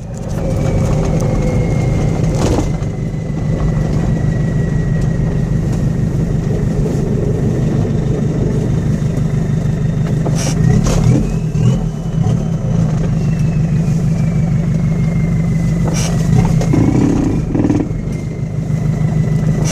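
A 1981 Toyota Hilux's 2.2-litre diesel, turbocharged with a retrofitted VW Golf 1.6 TD turbo and running through an open downpipe, gives a steady low rumble under a thin turbo whistle. The whistle sinks slowly, climbs about halfway through and falls back, then rises again near the end, following the revs. A few brief sharp clicks cut through.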